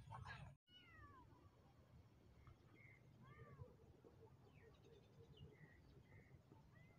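Several faint, short cat meows, a few falling in pitch.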